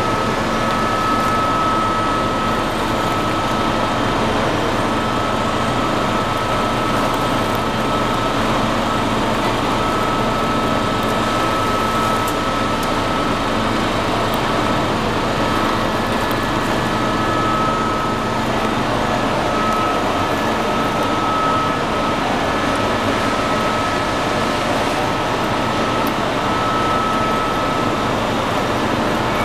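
Snack production line running: steady machinery noise from the belt dryer and conveyors, with a constant high whine that drops out briefly now and then.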